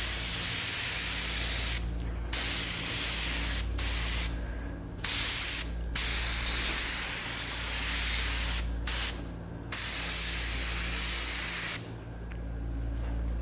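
Spray gun hissing in a run of short passes, the trigger released briefly several times, as a very light dusting coat of dye goes on; the spraying stops about twelve seconds in. A steady low hum runs underneath.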